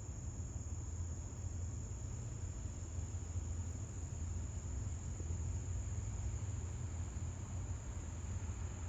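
Steady high-pitched drone of insects, like a cricket chorus, over a low steady rumble.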